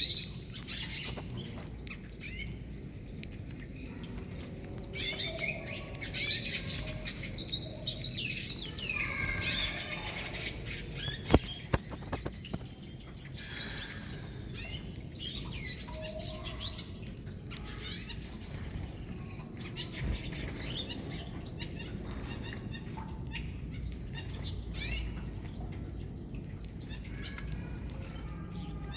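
Gouldian finches chirping and calling, many short high notes and little gliding calls, busiest in the first half, with one sharp click about eleven seconds in.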